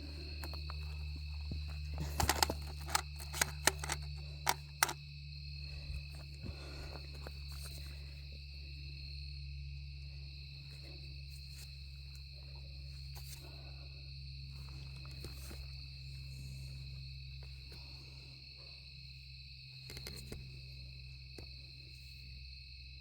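Steady high trilling of night insects such as crickets over a low steady hum, with a quick run of sharp clicks or knocks a couple of seconds in.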